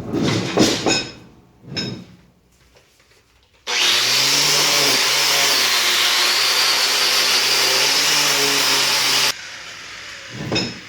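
A few heavy metal clunks as the iron leg vise is handled, then a power tool with a wire wheel starts abruptly and runs loudly for about five seconds, scrubbing the rusty iron. Its pitch sags briefly as it bears on the metal, and it cuts off suddenly.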